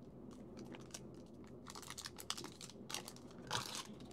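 Faint handling of a freshly opened foil trading-card pack: the wrapper crinkles and the stiff cards click and slide against each other, with a quick run of small clicks about two seconds in and a short rustle near the end.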